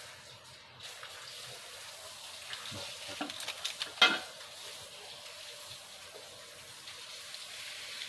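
Light metallic clicks and rattling of keys in a door lock, with one sharp click about four seconds in, over a steady hiss.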